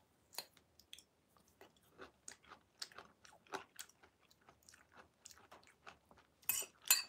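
A person chewing pieces of banpeiyu pomelo close to the microphone: a run of small, irregular wet clicks and smacks, with a couple of louder ones near the end.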